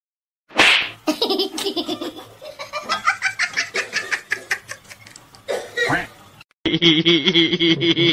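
A person laughing hard off-camera in rapid repeated bursts, starting about half a second in and running for several seconds. After a short break near the end, a different voice-like sound starts abruptly.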